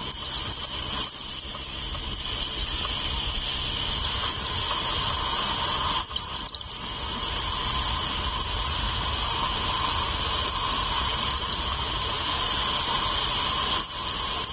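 Steady insect chorus, a continuous high even trill, over a constant background rush, dipping briefly about six seconds in.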